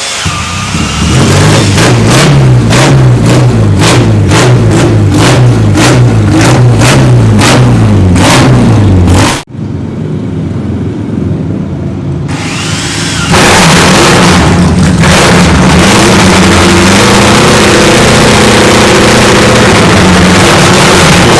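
Classic racing motorcycle engine revved hard in quick throttle blips, about two a second. After a sudden break an engine runs more quietly, then about four seconds later it runs loud and steady.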